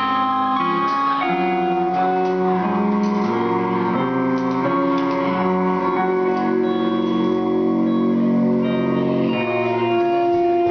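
Live instrumental music: an electric guitar plays sustained, layered notes that change every second or so, built up with looping and effects.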